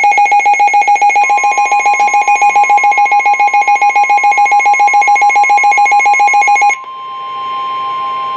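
Weather alert radio sounding a warning: a loud electronic alarm pulsing rapidly for about seven seconds over the steady NOAA Weather Radio warning alarm tone. The steady tone carries on alone after the pulsing stops near the end.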